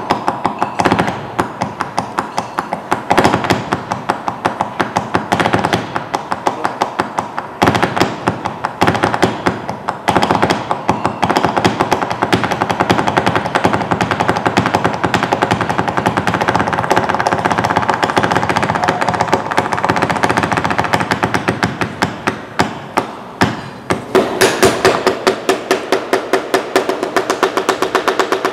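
Flamenco zapateado: very rapid heel and toe strikes of dance shoes on a wooden parquet floor, in long runs with brief breaks, over live musical accompaniment.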